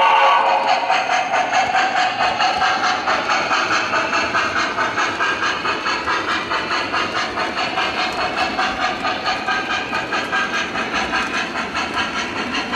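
MTH model steam locomotive's onboard sound system making a steady rhythmic steam chuff, about three hissing beats a second, over the rumble of the train running on the track. A whistle dies away just as it begins.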